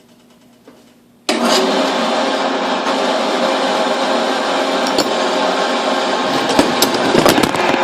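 An electric power tool switches on about a second in and runs steadily and loudly, with a few sharp ticks near the end as the work touches it.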